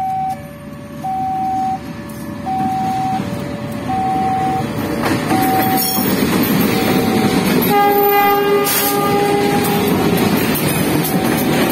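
Level crossing warning alarm sounding a two-tone high-low signal, under the growing rumble of a double-headed train of CC201 diesel-electric locomotives running past close by. About eight seconds in, a locomotive horn sounds for about a second.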